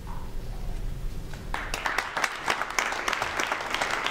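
Audience applause, many people clapping, starting about a second and a half in.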